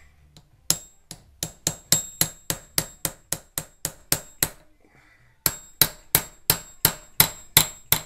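Hammer tapping a hardened steel driver, ground from an Allen wrench, into the slot of a seized slotted screw to seat it tight. Quick metallic taps come about three a second, each with a short ring, in two runs with a pause of about a second between them.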